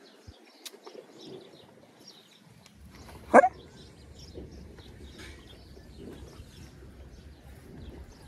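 Birds chirping, with a single short, loud dog bark about three seconds in.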